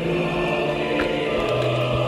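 Choral music: several voices singing long held notes together, the lowest part moving to a lower note about one and a half seconds in.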